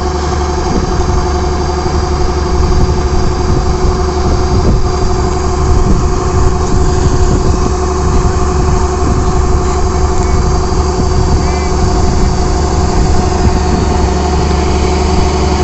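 Rice combine harvester running steadily while it unloads, its engine and unloading auger working as threshed paddy is emptied from the grain tank through the discharge pipe.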